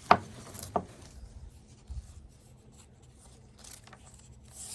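Handling noise close to a phone's microphone: two sharp knocks in the first second as the phone is wedged into place, then faint rubbing and rustling of fabric and strap webbing.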